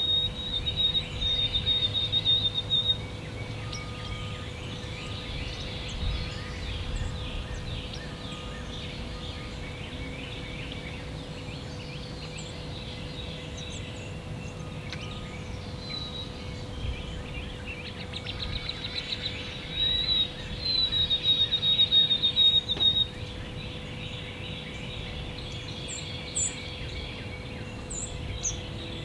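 Wild songbirds singing: a rapid, high trill of about three seconds at the start and again a little past the middle, with scattered other calls between, over a faint steady hum.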